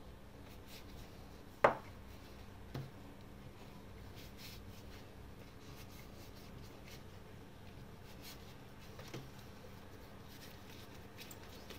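Plastic bench scraper cutting risen bread dough into pieces on a wooden countertop: soft scraping and rubbing of the scraper and hands on dough and board, with one sharp knock shortly after the start and fainter knocks about a second later and later on.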